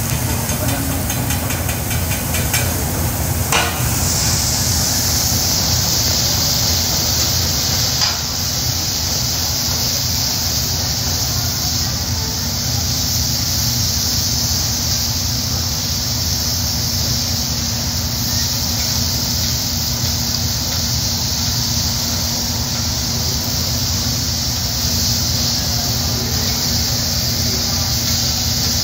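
Steam hissing and sizzling off a hot teppanyaki griddle as it pours from an onion-ring volcano, over a steady low hum. The hiss starts about four seconds in and then holds steady.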